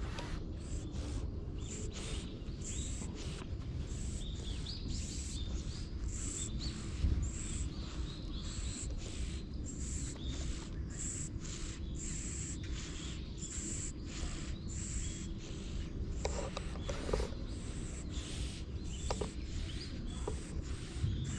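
Tabby-and-white cat purring in a steady low rumble while its head is stroked, close to the microphone, with birds chirping faintly in the background.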